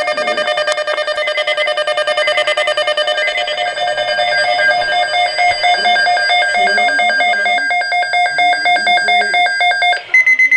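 Weather radio alert alarm: a loud, rapidly pulsing electronic tone sounding after the emergency alert data burst. It stops about ten seconds in, and a voice and short beeps follow near the end.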